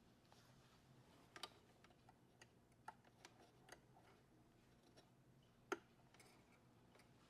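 Faint, irregular small clicks and taps, about ten in all, the loudest a little before six seconds in, from small parts and hand tools being handled while the screen assembly is worked on.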